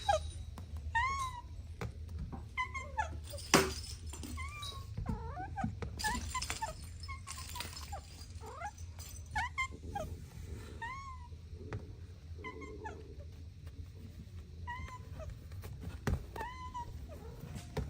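Kittens mewing over and over: short, high-pitched mews that rise and fall in pitch, about one a second, with a few sharp knocks among them.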